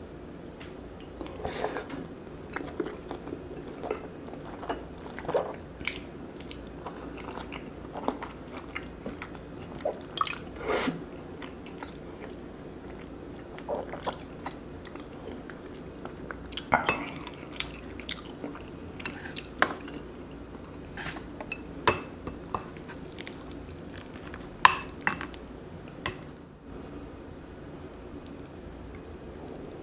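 Close-up eating sounds of a person chewing and biting a mouthful of braised kimchi and pork belly with rice: irregular short clicks and smacks. They thin out over the last few seconds.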